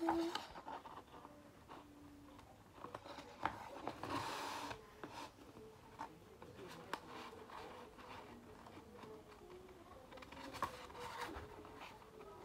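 Sheet of paper being handled and folded on a tabletop: soft rustling, scraping and light taps, with a longer rustle about four seconds in.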